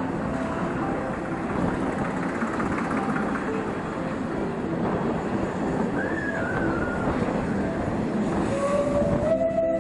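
Narrow-gauge Zillertal Railway train running along street track, a steady rumble of wheels and carriage. Near the end the train sounds a long, held horn.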